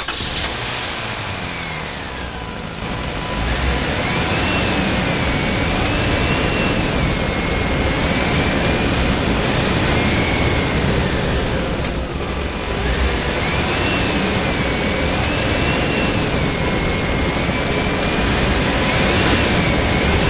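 Truck engine sound running steadily, a loud rumble with a whining note that rises and falls; the same pattern repeats about every ten seconds.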